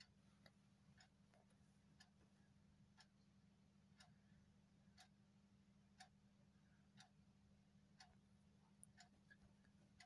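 Near silence, with faint sharp ticking about once a second over a low steady hum.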